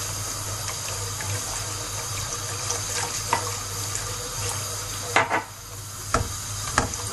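Wire whisk beating milk, sugar and flour in a saucepan: a steady, liquid swishing and sloshing with small ticks, and a few sharper knocks of the whisk against the pan in the last two seconds.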